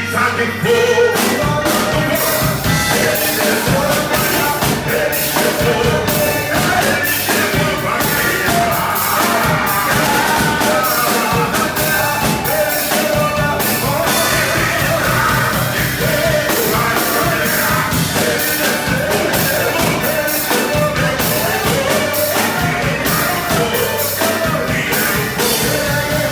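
Church praise band playing an upbeat worship song, with a full drum kit driving the beat and voices singing over it.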